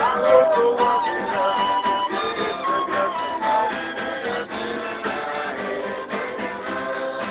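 A small ensemble of instruments, among them a clarinet, playing a hymn together, several held notes moving from chord to chord.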